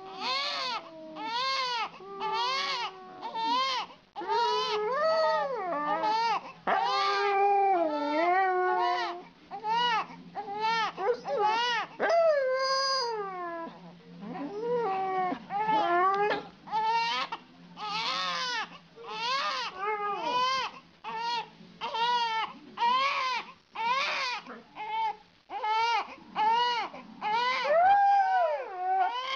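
A baby crying in repeated short wails while a husky lying beside it howls and whines along with it.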